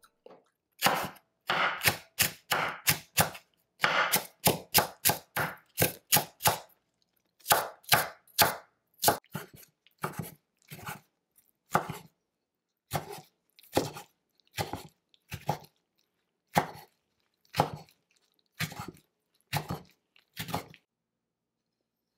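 Chef's knife chopping kimchi on a wooden cutting board: quick runs of chops in the first half, then single chops about one a second, stopping shortly before the end.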